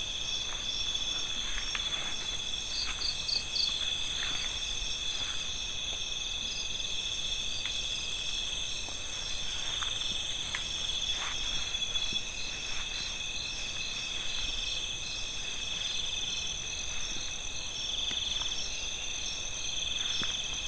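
Night-time insect chorus: several steady high-pitched trills layered at different pitches, one of them swelling and fading in slow pulses.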